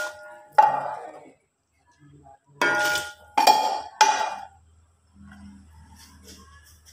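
A metal utensil knocks against the rim of an aluminium rice-cooker pot four times as beef rendang is scraped off into it. Each knock is a sharp clank that rings on briefly.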